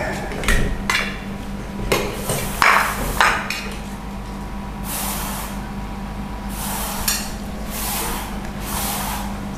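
Metal spoons clinking and scraping against stainless steel plates and a pot as fried rice is scooped and served, with several sharp knocks in the first three seconds and softer scraping and rustling after. A steady low hum runs underneath.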